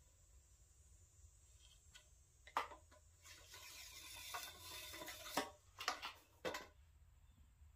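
Faint handling of trekking-pole tube sections and metal tent stakes. A sharp click comes about two and a half seconds in, then a scraping hiss for about two seconds, then a clink and a few quick clicks.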